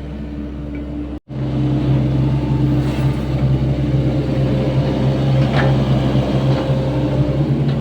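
Sany SY75C mini excavator's diesel engine running steadily while digging. The sound cuts out for an instant about a second in and comes back louder, with a few faint knocks later on.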